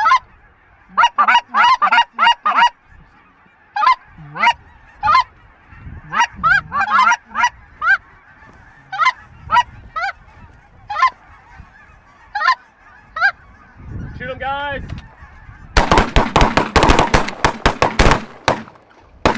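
A flock of geese honking overhead, many short calls in quick succession. Near the end comes a rapid burst of loud bangs: shotgun fire at the flock.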